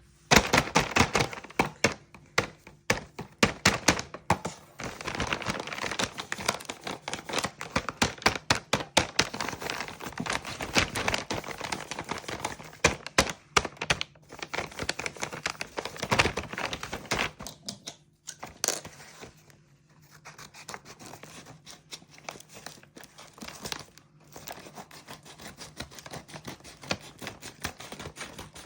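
Plastic packaging being handled, crinkling and tearing, with scattered taps and thuds; it grows fainter after about 18 seconds.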